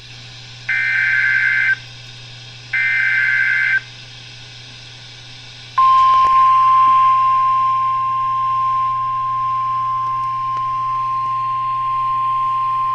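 Emergency Alert System SAME header on NOAA Weather Radio: the last two of three short digital data bursts, about a second apart. Then, about six seconds in, the single steady attention tone begins and holds, announcing a severe thunderstorm warning.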